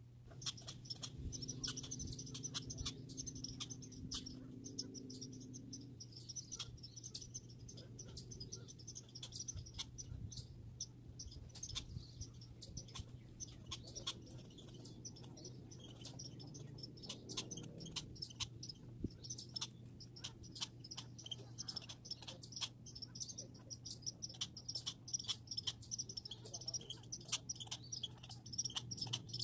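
Squirrels chattering: dense rapid clicks and high chirps throughout, over a steady low hum.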